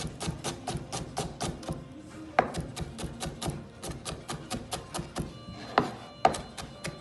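Kitchen knife chopping rapidly on a cutting board in a quick, even rhythm of about five strokes a second, with a few louder knocks.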